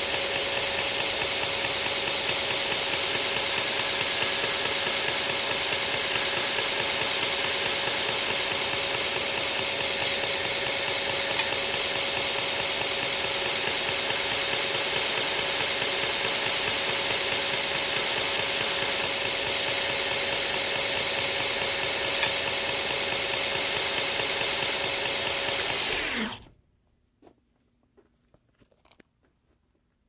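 Horizontal belt grinder running with a worn 400-grit belt over a small wheel, grinding the half stop on a pocket-knife blade's tang. It makes a steady whir and hiss with a constant hum that stops abruptly about 26 seconds in, followed by a few faint clicks.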